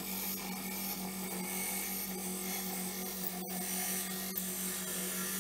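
Lathe running with a steady hum while a parting tool cuts into a spinning Delrin (acetal plastic) blank, a steady hissing scrape of the cut as the bushing is parted off. The sound breaks off for a moment about three and a half seconds in.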